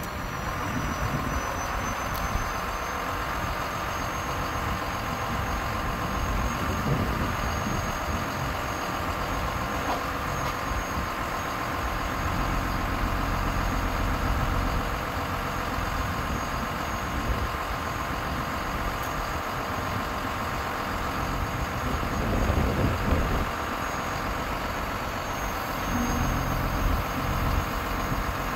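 Iveco Stralis truck's diesel engine running steadily to drive the hydraulics of its truck-mounted loader crane as the crane unfolds, with the level swelling briefly a couple of times.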